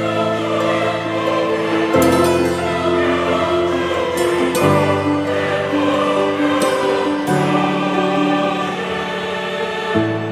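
Background music of held chords that change about every two and a half seconds.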